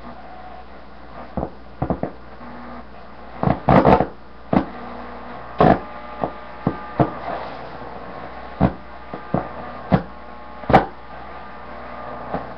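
Philco 39 vacuum-tube radio's speaker giving a steady hiss broken by a dozen or so sharp crackles and clicks, with faint steady whistles, as it sits between stations with no programme coming through.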